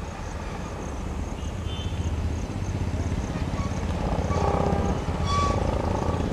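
ALCO diesel locomotive's engine running as the train approaches, a low rumble growing steadily louder, with a few short high notes over it, most clearly about five seconds in.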